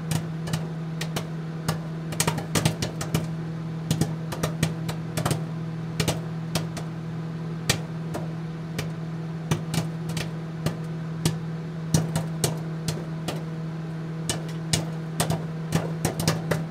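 A steady low hum with irregular sharp clicks and crackles scattered over it.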